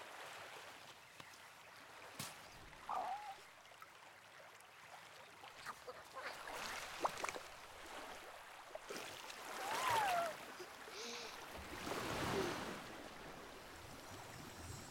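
Gentle shore water lapping and trickling, with a few short gliding calls over it, one falling in pitch about ten seconds in.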